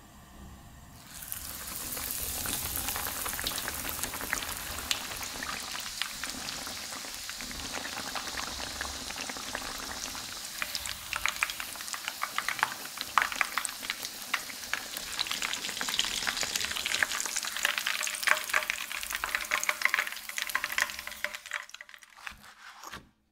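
Breaded pork schnitzel frying in oil heated to about 170 °C in a frying pan: a steady sizzle starts about a second in, with sharp crackling pops that grow busier in the second half, then it dies away just before the end.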